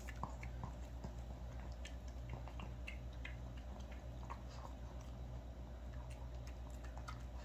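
A dog chewing pieces of cooked chicken from a stainless steel bowl: a run of small irregular clicks and smacks of mouth and teeth. A steady low hum runs underneath.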